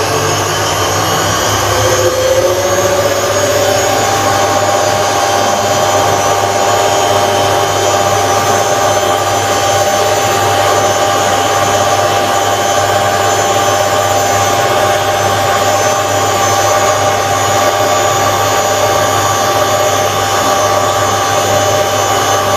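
Hotpoint WMA 9 washing machine's replacement motor driving the drum: a whine that rises in pitch over the first few seconds as the drum speeds up, then holds steady at speed.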